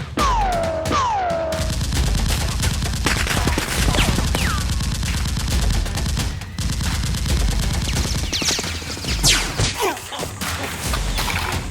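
Rapid automatic gunfire, a long run of shots, over a music bed with a steady low beat. Two falling, whizzing sweeps come at the very start.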